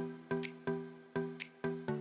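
Background music: a melody of short notes that strike and fade, about two to three a second, over a regular high tick.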